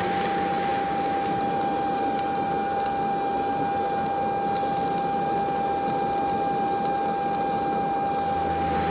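Flux-cored arc welding a fill pass on chrome-moly pipe: the arc crackles and sizzles steadily without a break, with a steady tone underneath.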